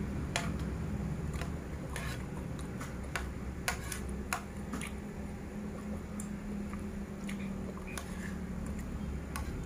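A person chewing a mouthful of rice and chicken, with a metal spoon clicking and scraping against the plate several times. A steady low hum runs underneath.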